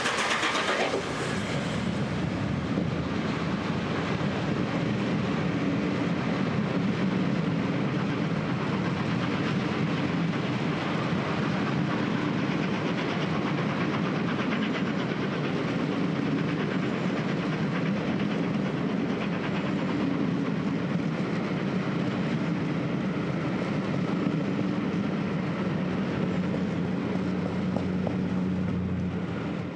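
The steam-hauled train behind Peppercorn A1 Pacific 60163 Tornado passing beneath the bridge and running away down the line. A hissing burst of steam and exhaust fills the first second or two, then the coaches' wheels clatter over the rails in a steady rumble.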